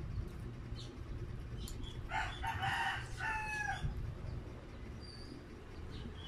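A rooster crows once, a single call of nearly two seconds starting about two seconds in, its pitch dipping slightly at the end. A few faint clicks come before it.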